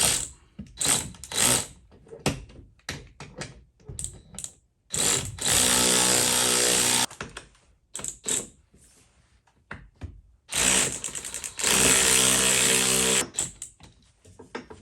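Power drill running in two steady bursts of about two seconds each, a few seconds apart, while fitting a lag bolt into a wall stud. Before the bursts come scattered clicks and knocks of tools being handled.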